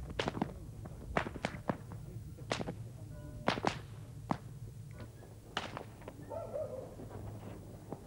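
Long braided whips cracking: a dozen or so sharp cracks at irregular intervals, some in quick pairs, growing sparser toward the end. The whip-cracking announces the arrival of New Year's well-wishers.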